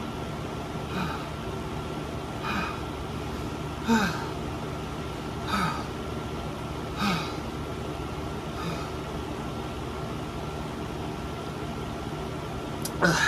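A person breathing hard through the burn of an extremely hot pepper chip: short, voiced exhalations falling in pitch, about one every second and a half, with a pause of a few seconds near the end. A steady hum lies underneath.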